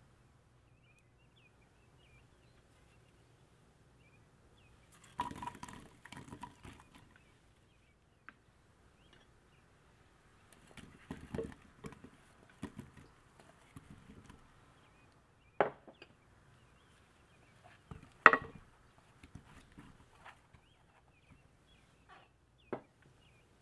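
Chopped vegetables (onion quarters, potato cubes, then eggplant cubes) tipped by hand from glass bowls into an earthenware clay pot, making soft thuds and clatter in several clusters. A few sharp single clinks come from a bowl knocking the pot, the loudest about three-quarters of the way through.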